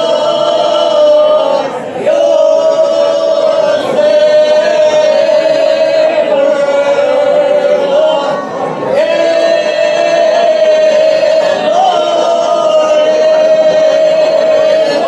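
Women's folk group singing ojkača, an unaccompanied traditional Dinaric part-song, together into microphones. Long held notes, breaking briefly for breath about two, four and eight and a half seconds in.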